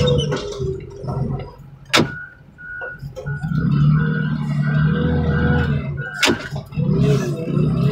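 Two sharp knocks about four seconds apart, with a vehicle's warning chime beeping rapidly between them and stopping at the second knock, over a steady low engine idle. The pattern fits a car door opening and shutting on its door-open chime.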